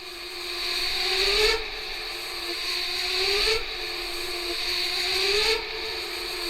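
AI-generated horror sound effect: a harsh, noisy grinding that swells and drops back about every two seconds, each swell ending in a rising tone, three times over.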